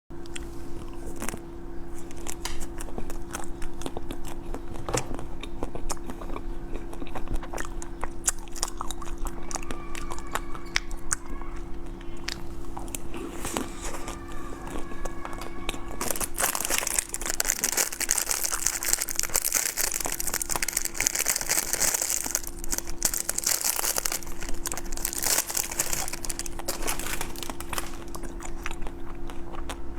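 Close-miked eating: biting and chewing food with many sharp crunchy clicks. From about halfway, a louder crinkling hiss joins in for most of the rest, over a steady low hum.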